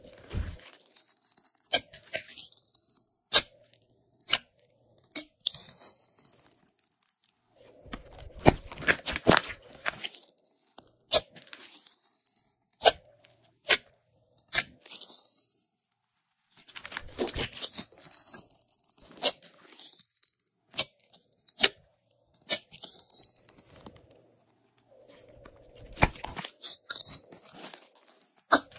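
Hands squeezing, kneading and stretching glossy slime mixed with pink slime, making sticky crackling and irregular sharp pops and clicks. Dense crackling comes in three spells, with quieter squishing in between.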